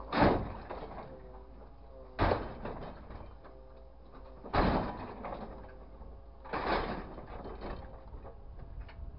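Scrap metal clanging into a grapple truck's steel bin: four loud clangs about two seconds apart, each ringing briefly, over a faint steady whine.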